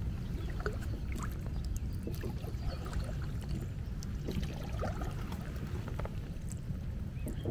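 A small folding boat being paddled: water splashing and dripping off the paddle, with irregular light knocks, over a low steady rumble.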